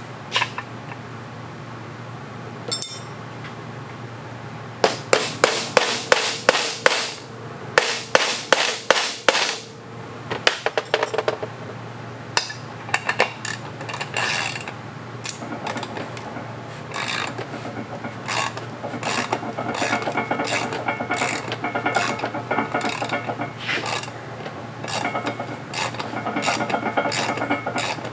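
Ratchet wrench clicking as the drain bolt, stuck in stripped threads and JB Weld, is worked loose from the engine case. It starts as sharp clicks about two a second, then turns into faster, denser clicking in the second half.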